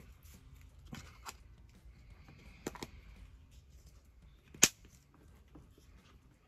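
Light plastic clicks and taps from handling a hollow plastic toy-ball capsule, with one sharp, louder click about four and a half seconds in.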